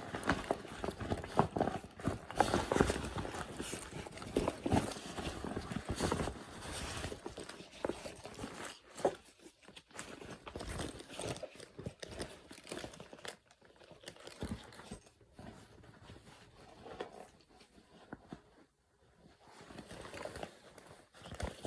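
Crinkling and rustling with irregular knocks as a new backpack is handled and opened, busier in the first half and sparser later.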